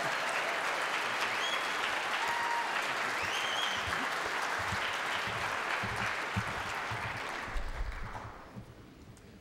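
Audience applauding after a barbershop quartet's song, with a few brief calls from the crowd heard over it in the first few seconds. The applause dies away near the end.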